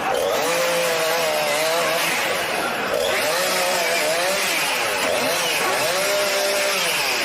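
Chainsaw revving up and down as it cuts into a Ducati 1098 motorcycle.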